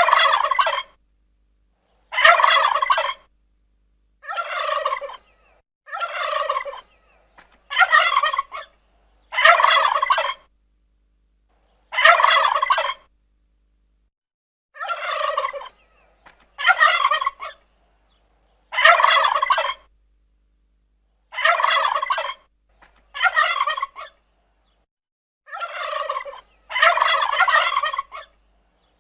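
Turkey gobbling, about fourteen separate gobbles, each under a second long, every two seconds or so with silence between them.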